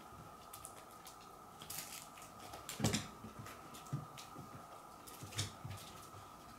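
A cat scuffling with a plush kick toy on a wooden floor: claws clicking and skittering, with soft thumps as it pounces and bats the toy, the loudest thump about three seconds in. A faint steady hum runs underneath.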